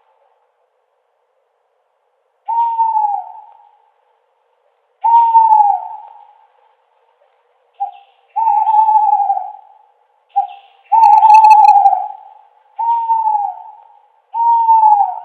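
Owl hooting: a series of hoots about a second long, each falling in pitch at the end, repeated every couple of seconds, with a short note just before two of them.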